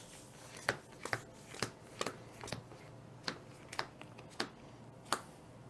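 Playing cards being handled and set down on a tabletop: a run of short, light clicks, roughly two a second.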